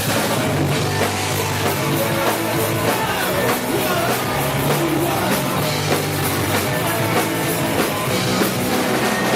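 Rock band playing a song live at full volume, with a driving drum kit under dense, loud band instruments.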